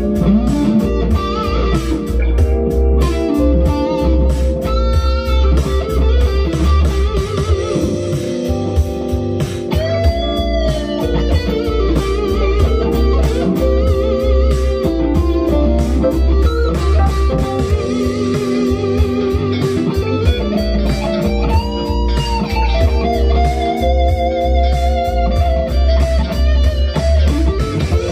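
Harley Benton HB DC-580 CH (a Gibson SG copy) electric guitar playing a lead over a funk backing track in G with bass and drums. The guitar uses string bends, clearly about ten seconds in and again past twenty seconds, and held notes with vibrato.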